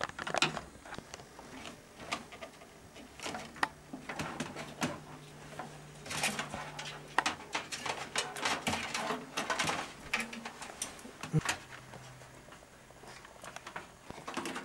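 Computer cables and plastic parts being handled as a fan cable is fitted to a motherboard: irregular light clicks and rustling, with a faint low hum in the middle.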